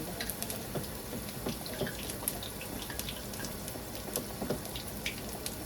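Sel roti dough deep-frying in hot oil: a steady sizzle with many small crackles and pops.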